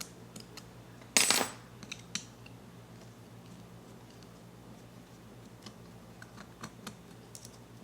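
A short metallic clatter about a second in, then a few light clicks and taps: small metal parts of a Mazzer Mini coffee grinder handled while its worn burr is unscrewed and removed.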